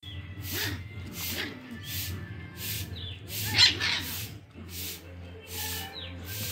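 Puppies giving small whines and growls, with one loud yelp a little past the middle, over a regular swishing beat that comes about every three-quarters of a second.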